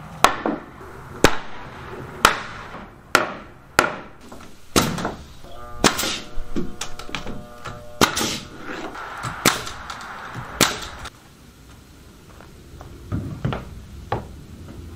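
Hammer blows on wooden 2x4 wall framing, sharp knocks about one a second, driving studs and framing members into place. The blows come in two runs separated by a brief pause, then stop about three quarters of the way through, with a few faint knocks near the end.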